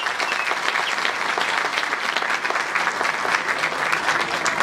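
Concert audience applauding: steady, dense clapping from a large crowd at the end of a song.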